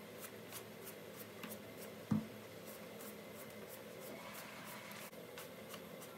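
Eggplants being peeled in stripes: a blade scraping off strips of skin in a run of faint, quick strokes, with one soft thump on the wooden cutting board about two seconds in.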